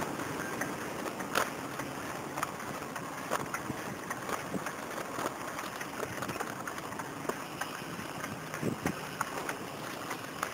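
Bicycle riding on concrete: a steady rush of wind on the microphone and rolling noise from a knobby tyre, with scattered small clicks and knocks, one sharper knock about a second and a half in.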